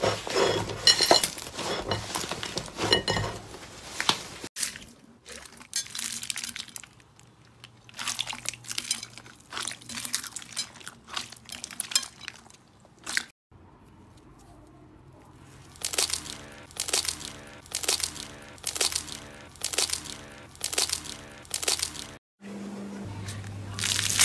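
Slime being squeezed and pressed by hand: wet squishing with crackly pops and clicks, in several short stretches broken off suddenly. Toward the end the hand presses it in a regular rhythm, about three presses every two seconds.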